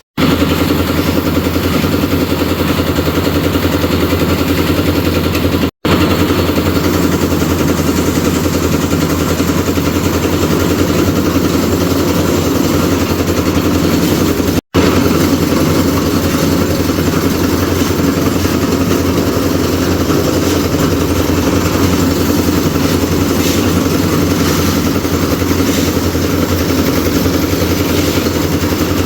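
Engine of a concrete-mixing machine running steadily during roof-slab concreting. The sound drops out abruptly for an instant twice, about 6 and 15 seconds in.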